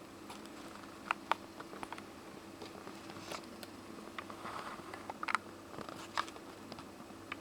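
Hawfinch pecking its beak against window glass: sharp, irregular taps, a few close pairs among single knocks, taken by the owner as the bird being angry.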